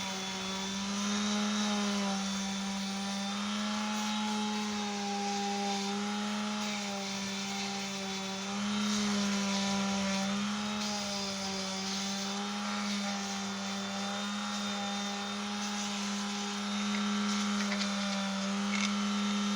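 Electric sanding tool fitted with a 60-grit abrasive running steadily on wood, with a humming motor whose pitch dips slightly and recovers every few seconds as the work is pressed against it.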